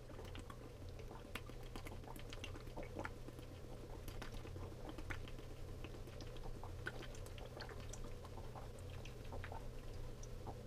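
A man drinking water from a plastic bottle in one long go: faint, steady gulping and swallowing with many small clicks, over a steady low hum.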